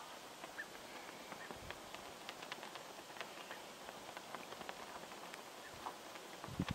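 Faint outdoor ambience: a low steady hiss with scattered small ticks and a few faint high chirps.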